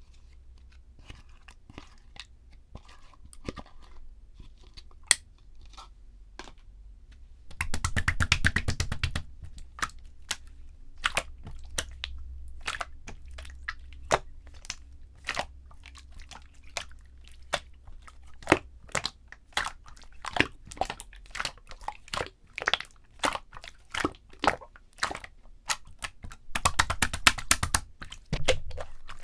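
Purple jelly-textured slime being squeezed and poked by hand, giving sticky clicks and small air-bubble pops, with two stretches of fast crackling, one about a quarter of the way in and one near the end.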